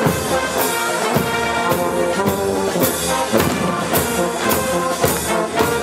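Brass band playing, trombones and trumpets holding sustained notes over a steady drum beat of about two strokes a second.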